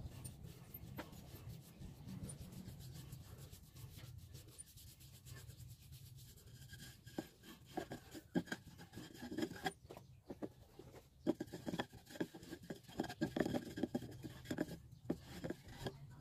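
Paintbrush stroking liquid finish onto a turned wooden goblet: a soft brushing rub in short, irregular strokes that grow busier through the second half.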